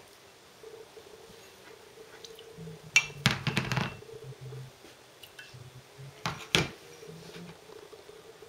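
Ceramic ramekins knocking and clinking as they are picked up and set back down on a tray: a cluster of light knocks about three seconds in and two more a little after six seconds.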